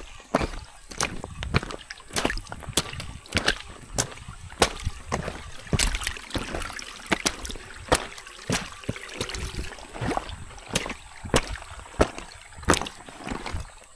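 Footsteps of waterproof mid-cut trekking shoes wading up a shallow, rocky mountain stream at a steady walking pace, a splash or knock on rock roughly every half second, over running stream water.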